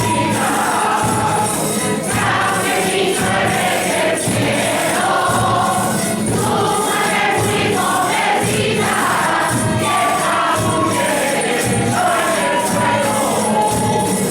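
A Spanish Christmas carol (villancico) sung by a group of voices over music, with steady jingling percussion like a tambourine or sleigh bells.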